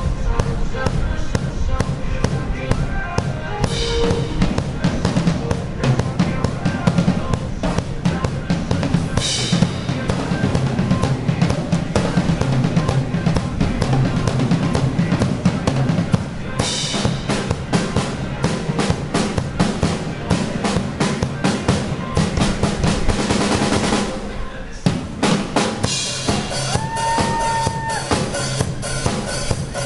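Drum kit played at a fast, steady groove of bass drum and snare strokes with cymbal crashes every few seconds and a long stretch of continuous cymbal wash. The playing drops out briefly about 24 seconds in, then resumes.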